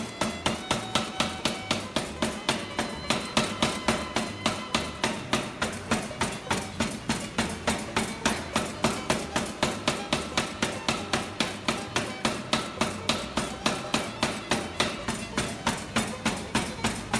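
Chambersburg 200-lb general utility hammer, a compressed-air-driven power hammer with flat dies, running in repetitive blow mode. It strikes in an even, steady rhythm of about three blows a second.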